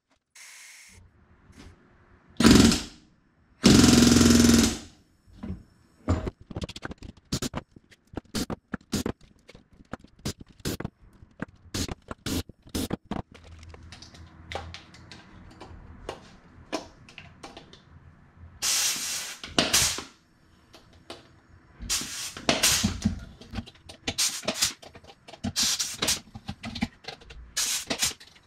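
Pneumatic rivet gun driving rivets into an aluminium aircraft bulkhead against a bucking bar, in several short bursts, the longest about a second. Many sharp clicks and knocks of hand tools and metal parts being handled come between the bursts.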